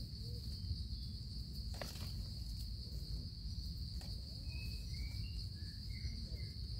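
Steady high-pitched drone of an insect chorus, with a few faint light clicks and some brief faint chirps in the second half.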